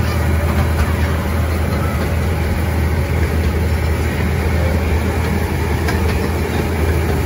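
Steady low engine hum and rolling noise of a slow-moving vehicle, heard from on board.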